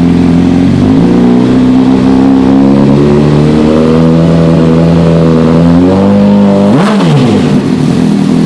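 2005 Honda CBR600's inline-four engine running through a Yoshimura RS-5 carbon-fibre slip-on exhaust. It idles, then the revs climb slowly for several seconds, and near the end a quick throttle blip rises and drops sharply back to idle.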